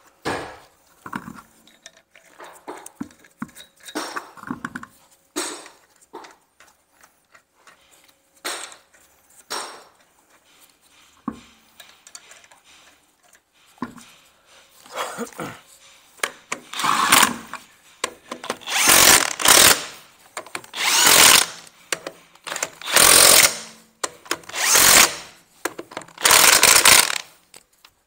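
Clicks and knocks of a wheel being hung and its nuts handled, then an impact wrench buzzing the wheel nuts up. It runs in short bursts about two seconds apart, one nut after another, through the second half.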